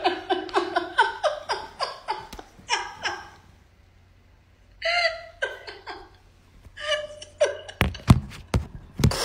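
A woman laughing hard in quick rhythmic bursts, breaking off into a brief silence, then coming back in high-pitched squeals and gasps. Near the end, a few sharp thumps.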